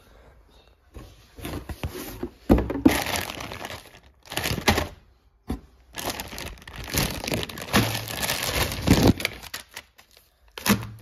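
Plastic bag crinkling and rustling in several bursts as a bundle of car-audio cables is pulled out of its packaging.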